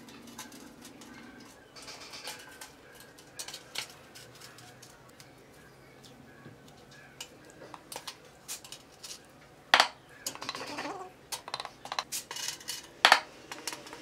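Steel hand trowel scraping wet mortar and clinking against bricks and the stainless-steel washing-machine drum as bricks are set in mortar. The scrapes and clinks come irregularly, and the two sharpest knocks fall about ten and thirteen seconds in.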